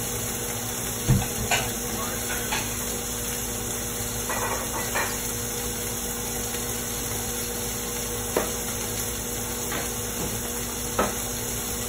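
Steak searing in a hot pan on a gas stove: a steady sizzling hiss, with a faint steady hum under it and a few light clicks and knocks scattered through.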